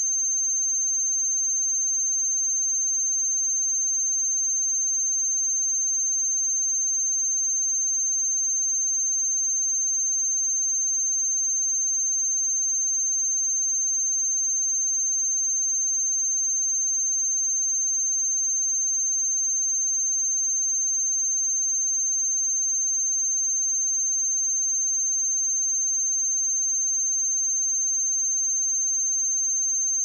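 A pure 6308 Hz sine-wave test tone, held steady at constant level with no other sound.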